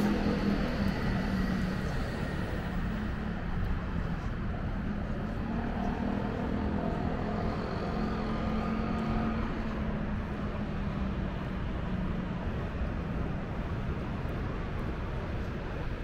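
Steady low engine hum over outdoor city noise, swelling again near the middle.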